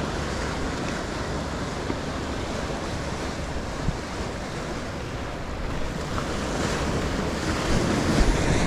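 Ocean waves washing in at the shore, with wind buffeting the microphone; the wash grows louder in the last couple of seconds.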